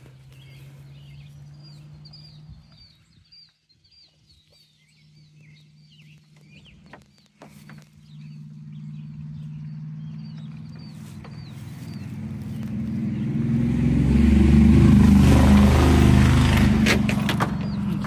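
Birds chirping in quick, repeated short notes, then a motor vehicle passing by: a low engine-and-tyre sound swells to the loudest point a few seconds before the end and fades away.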